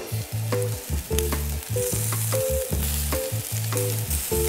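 Upbeat intro music with a deep bass line and regular drum hits, over the sizzle of hot dogs frying on a grill.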